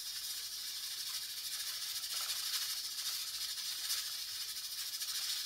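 Aluminium pressure cooker on a gas burner hissing steadily as steam escapes through its pressure valve: the cooker is up to pressure.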